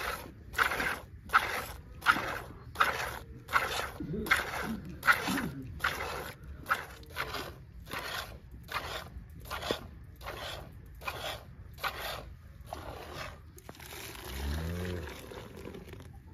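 Cow being milked by hand: rhythmic squirts of milk into a pail, about two to three strokes a second. A few brief animal calls are heard about four seconds in, and a short low call near the end.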